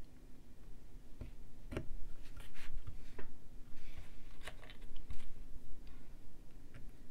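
Small irregular clicks and scrapes of LED leads being pushed into a plastic solderless breadboard and handled.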